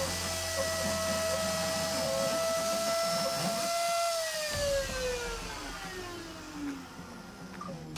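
Trim-router spindle on a desktop CNC router running with a steady high whine as it finishes engraving a wooden board, then switched off about four seconds in and winding down with a steadily falling whine.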